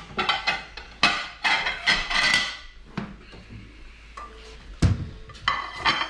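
Ceramic plates clattering and clinking as one is taken out of a stack in a cupboard. A single sharp knock comes a little before the end, followed by more kitchen clatter.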